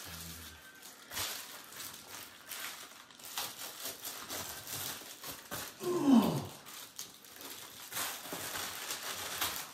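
Packaging crinkling and rustling as a package is handled and opened, with a short sound falling in pitch about six seconds in, the loudest moment.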